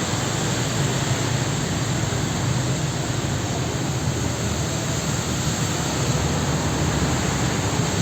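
Heavy rain pouring down in a steady hiss, with a steady low rumble underneath.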